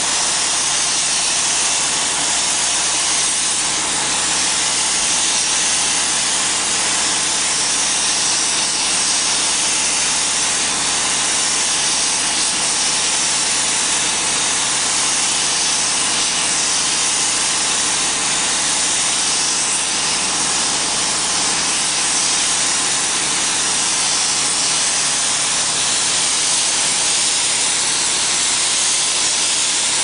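Steady high-pitched hiss of compressed air from a paint spray gun spraying paint, unbroken and even in level.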